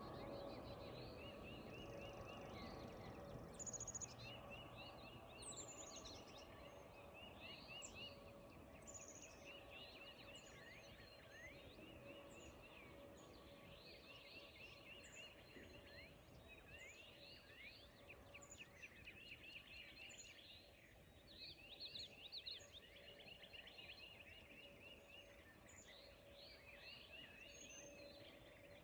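Faint dawn chorus of birds: short rattling trilled phrases repeated every couple of seconds and many high downslurred whistles, over a low steady hum.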